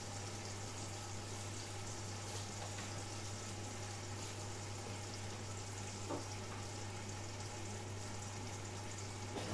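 Food simmering in a covered stainless-steel pan on the hob: a steady low hiss of boiling under the glass lid, over a steady low hum. A faint tick about six seconds in.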